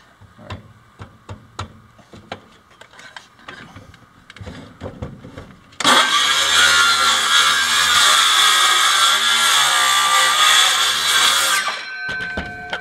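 Battery-powered DeWalt circular saw: taps and knocks as the saw is set on the board, then about six seconds in it starts and cuts through a wooden floor board for about six seconds, its pitch dipping slightly under load. It stops near the end, the blade winding down.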